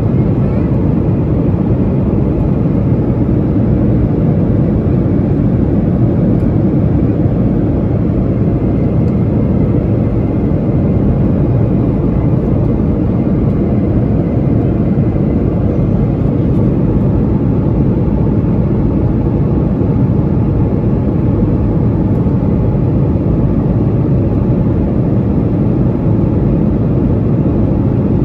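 Steady low noise inside an airliner's passenger cabin: the even drone of engines and air, unchanging throughout.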